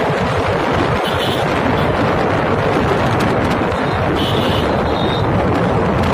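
Wind buffeting the microphone over the engine and road noise of a motorcycle riding at speed: a loud, steady rush with a gusty, rumbling low end.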